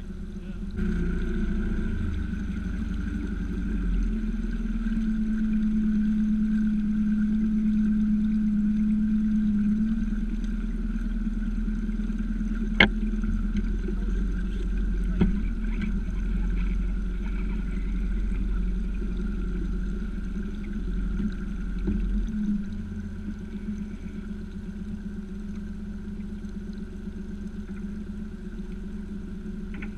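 Small boat's motor running steadily with a low hum and a thin whine, louder for several seconds a few seconds in, then easing back. One sharp knock about thirteen seconds in.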